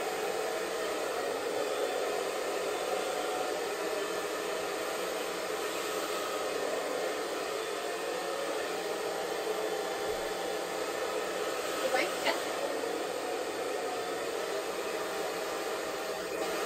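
Hand-held hair dryer blowing steadily. Two short clicks sound close together about twelve seconds in.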